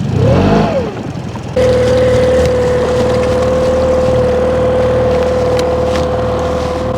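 A fishing boat's motor catches about a second and a half in, after a brief rising-and-falling sound, then runs steadily with a constant whine over a low hum.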